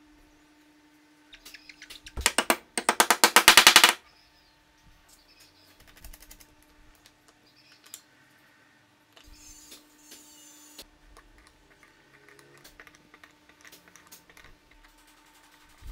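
Small steel spanner working a bolt through a wooden disc, with a fast, even run of loud metal clicks, about ten a second, starting about two seconds in and lasting about two seconds. Light scattered metal ticks and taps follow.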